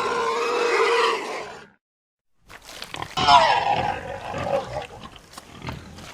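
Pig squealing: a long, high, held squeal fades out about a second and a half in. After a brief silence a second recording starts with knocks, another squeal that bends in pitch, and then rough grunting sounds.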